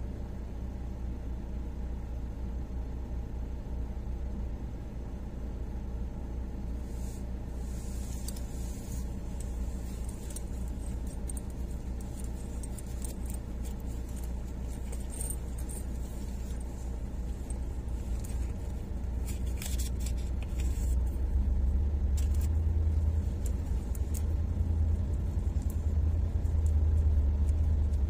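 Dump truck diesel engines running at low revs, a steady low rumble that grows louder in the last few seconds as one truck drives closer, with faint scattered rattles and clanks in the middle.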